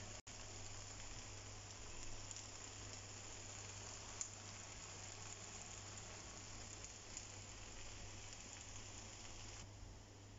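Stir-fried rice noodles and vegetables sizzling softly in a hot wok: a steady faint hiss with a few small crackles, cutting off near the end.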